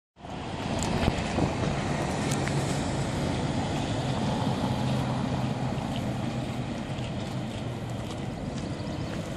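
Road traffic on a city street: a single-deck bus drives past close by, its diesel engine humming steadily for a few seconds, over a constant rush of passing traffic.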